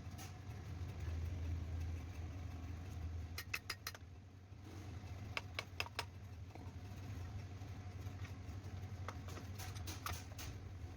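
A steady low hum with a handful of small sharp clicks, a few grouped at about three and a half and six seconds in.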